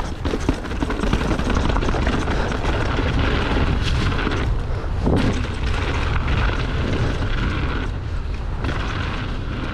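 Wind buffeting the microphone of a mountain bike rider's camera at speed, over the steady rumble and rattle of tyres rolling down a rocky dirt trail, with scattered knocks and clicks from stones and the bike.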